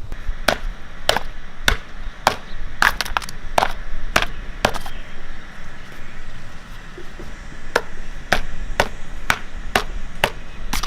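A run of sharp cracks or clicks, about two a second, with a pause of a few seconds in the middle, over a low steady rumble.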